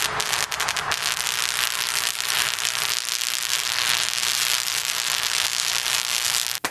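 Dense, steady crackling of high-voltage electrical discharge: sparks jumping from the raised gloved hands of linemen working near energised power lines.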